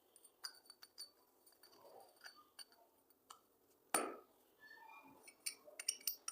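Light clicks and clinks of small hard parts being handled, with one sharper knock about four seconds in and a quick run of clicks near the end.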